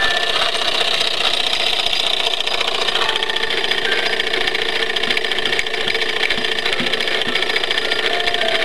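Wilesco D36 model steam engine running fast with a rapid, even mechanical clatter as it drives a Wilesco M99 paper-strip pipe organ. The organ sounds only a few scattered held notes, one about three seconds in, another a second later, and a third near the end.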